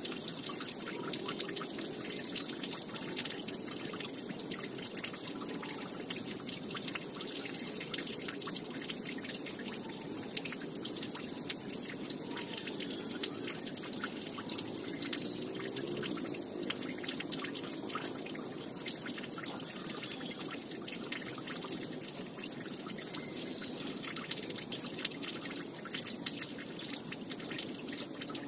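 Steady dripping of many small water drops, a dense and unbroken patter of tiny ticks.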